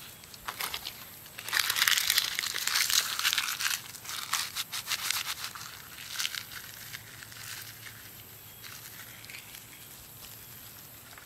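Dry leaves crumpled and crushed by hand: a dense crackling about one and a half seconds in that lasts a couple of seconds, then a few scattered crackles, dying down to faint rustling in the second half.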